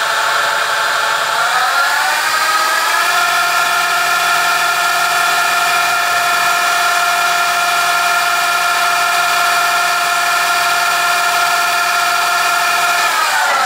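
Fadal VMC 30x16 vertical machining center spindle whining as it runs. It speeds up to a higher pitch about two seconds in, holds a steady speed, and winds down to a lower pitch near the end.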